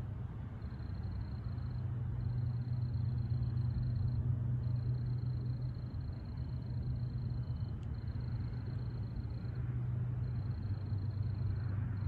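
Low, steady rumble of distant diesel freight locomotives, swelling slightly a few seconds in, with an insect trilling high in short runs over it.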